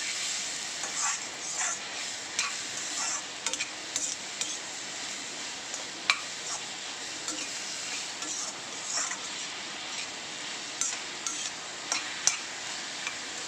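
Steel ladle scraping and knocking against a kadai as raw banana cubes and shallots are stirred and sautéed, over a steady sizzle of frying oil. Frequent short clanks, the sharpest about six seconds in and again near the end.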